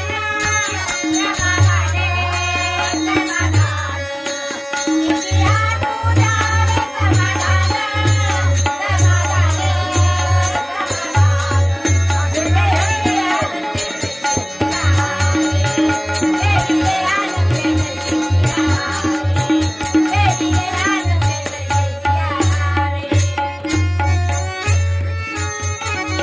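Marathi devotional bhajan sung to a steady drum beat, with small hand cymbals striking a fast, even rhythm.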